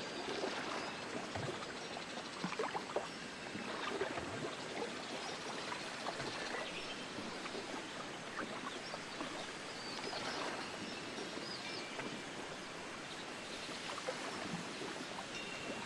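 Wind rushing through foliage, with small birds chirping now and then and a temple wind bell giving a few faint, ringing tones near the end.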